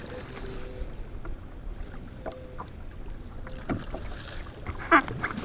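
Water splashing and lapping around a kayak as a hooked striped bass thrashes at the surface beside it, with a brief loud thump near the end.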